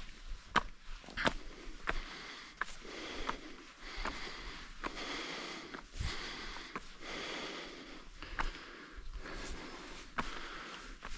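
A hiker breathing heavily and walking, with footsteps on the trail about every two-thirds of a second.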